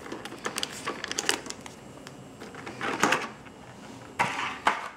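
Hands taking foil booster packs out of a metal tin: scattered light clicks and taps on the tin, with short rustling bursts about three seconds in and again near the end.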